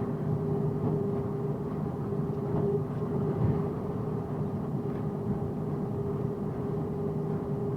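Box truck driving at steady speed, heard from inside the cab: a constant drone of engine and road noise with a steady low hum running through it.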